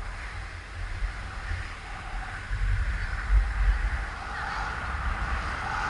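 Wind buffeting the microphone of a camera carried by an inline speed skater, a low rumble that is strongest in the middle. Under it runs a steady hiss of skate wheels rolling on asphalt, growing louder near the end as the skater speeds up.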